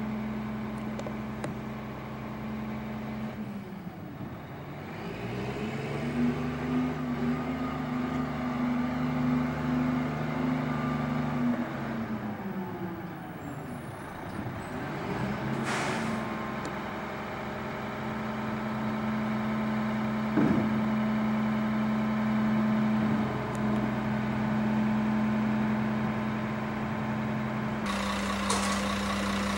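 Diesel engine of a Crane Carrier Company garbage truck with a Wittke manual side-loader body, running steadily. Its pitch dips and rises twice as it pulls away. A short air-brake hiss comes about halfway through.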